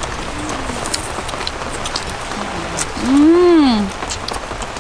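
Steady hiss of rain with scattered light clicks. About three seconds in, a woman's drawn-out voiced sound rises and falls in pitch for under a second.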